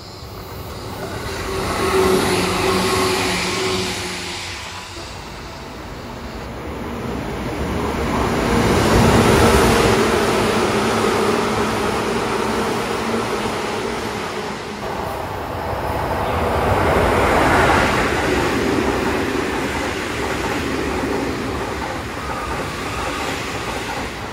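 Seibu Railway electric commuter trains passing at high speed, over 100 km/h, one after another: the rush of wheels on rail and running gear swells and fades three times, with some clatter over rail joints.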